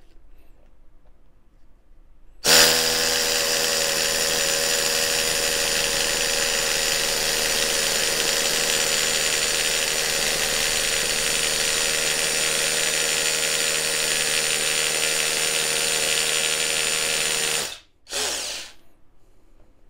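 Ingco 20V brushed cordless rotary hammer drill hammer-drilling into a concrete block. It starts abruptly about two and a half seconds in, runs steadily for about fifteen seconds, stops sharply, then runs once more briefly for under a second.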